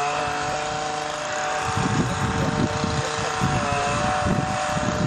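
A motor droning steadily at an even pitch.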